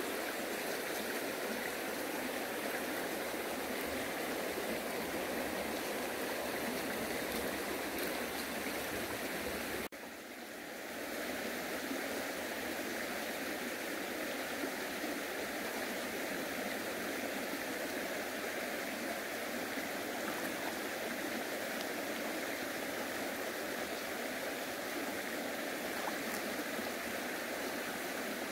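Steady rush of flowing water, like a stream or running channel. It cuts off abruptly about ten seconds in and comes back within about a second.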